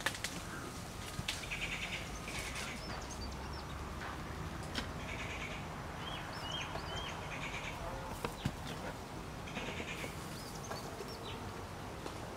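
Birds calling: repeated short, harsh buzzy calls every few seconds and a run of three quick hooked chirps about halfway through, with a few light clicks.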